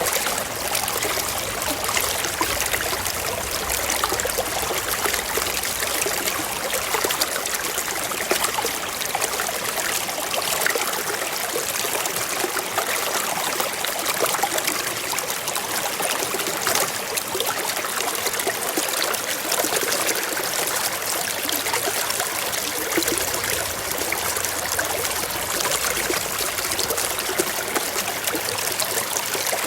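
Waterfall: water rushing and splashing in a steady, dense hiss, carried mostly in the higher range with little low rumble.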